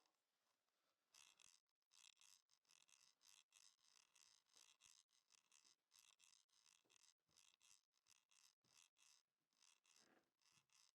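Near silence: faint, choppy hiss and rustle.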